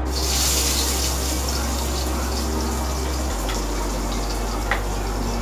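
Sliced shallots sizzling in hot oil in a wok, a steady hiss, with two light knocks of the utensils near the end and a low steady hum underneath.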